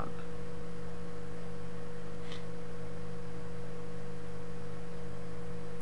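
Steady electrical hum: a few fixed tones over an even hiss, unchanging throughout.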